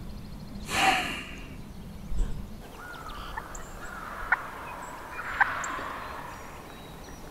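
Wild turkey gobbler gobbling: one loud gobble about a second in, followed by a fainter, drawn-out call and two sharp clicks.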